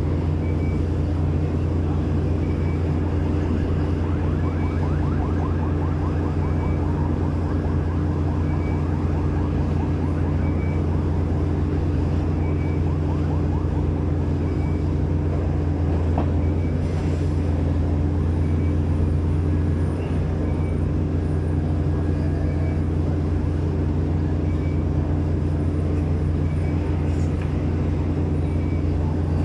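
Giken Silent Piler hydraulic press-in pile rig and its power unit running with a steady, loud, low engine and hydraulic drone. A short high beep repeats about once a second over it.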